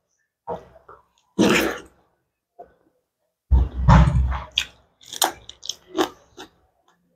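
Close-miked eating: a person chewing a hand-fed mouthful of rice with wet lip smacks and clicks, along with the sound of the hand mixing food on the plate. About halfway there is a louder burst with a low thump, followed by a quick run of smacking clicks.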